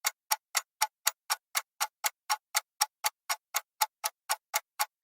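Quiz countdown ticking sound effect, like a clock, with short even ticks about four times a second.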